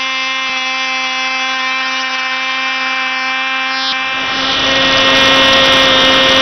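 Tiny Cox .049 glow engine of a control-line model airplane running flat out at a steady pitch, a high-pitched buzz. About four seconds in it gets louder, with a rushing wind noise added as it is heard from a camera on the airplane.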